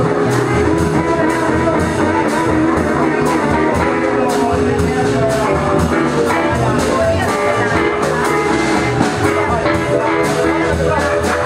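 Live blues band playing: drum kit keeping a steady beat under guitar, with a lead instrument holding long notes above.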